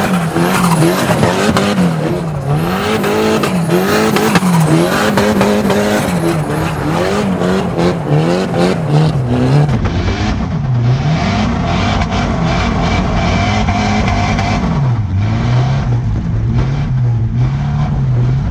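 SR20-swapped BMW E36's four-cylinder engine revving up and down over and over as the car slides around on loose dirt, with tyre noise. About halfway through, the sound is heard from inside the cabin.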